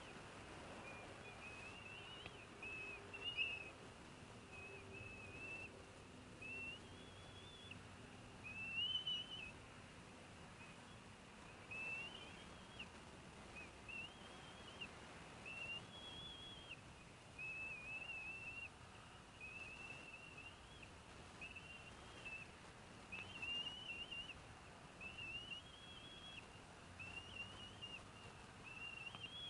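Bald eagle eaglet chirping: a long series of short, high, thin chirps, roughly one a second, faint over a light background hiss.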